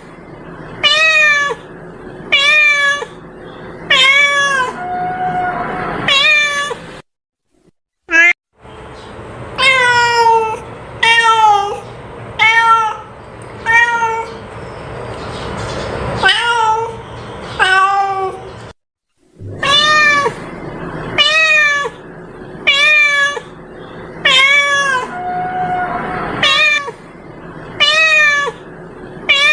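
A cat meowing over and over, about one meow a second, each call rising and falling in pitch; the sound cuts out twice briefly. A repeated meow recording made to lure and call cats.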